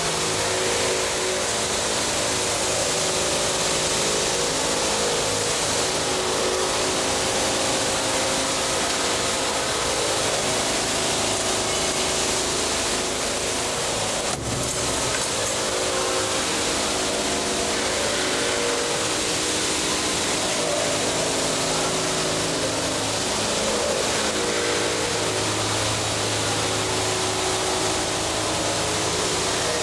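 CNC spring and wire forming machine running steadily, its motors humming under a constant mechanical noise, with a single sharp click about halfway through.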